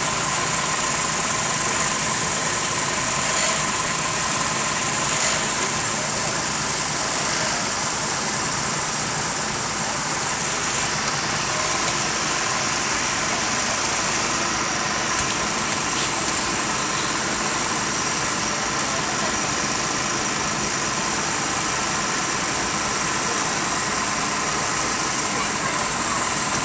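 An engine running steadily, a constant drone with a steady whine, unchanged throughout.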